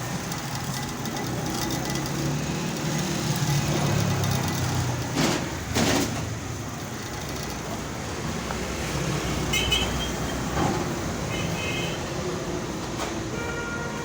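Street traffic noise with a steady rumble, two sharp knocks near the middle and a few short high beeps later on.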